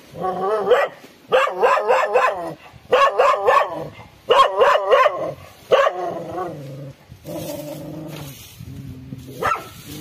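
A dog barking repeatedly in quick runs of several barks for the first six seconds or so, then quieter, lower calls.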